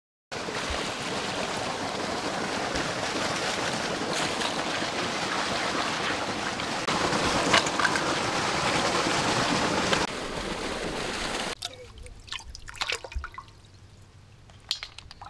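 Water running and splashing in a steady rush that cuts off suddenly about three-quarters of the way through, followed by faint scattered knocks and clicks.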